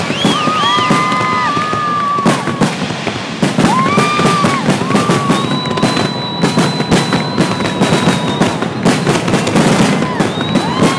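Fireworks finale: a dense, rapid run of bangs and crackling bursts, with several drawn-out whistling tones sounding over them.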